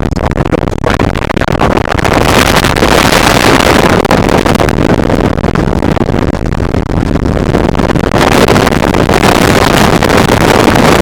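Loud, steady road and wind noise of a moving car, heard from the car. It grows louder about two seconds in.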